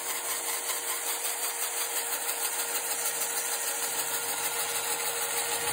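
Lego electric motors running steadily and turning the model car's exposed plastic gear train: an even whir with a constant hum and a fine gear rattle.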